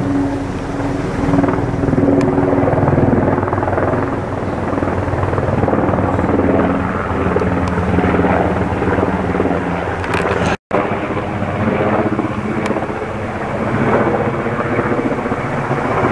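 Helicopter flying low overhead, its rotor blades chopping rapidly over a steady engine drone. The sound drops out for a split second about ten and a half seconds in.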